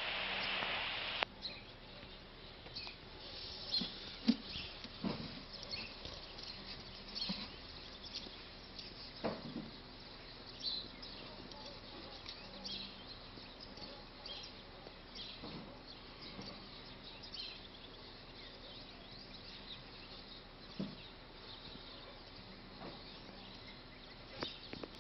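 Faint outdoor background with scattered short, high chirps and ticks and a few soft knocks, after a brief hiss in the first second or so.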